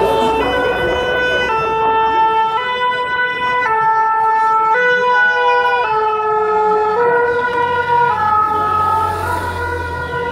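Two-tone emergency-vehicle siren in the French style, alternating between two notes about once a second. A vehicle's engine grows louder near the end.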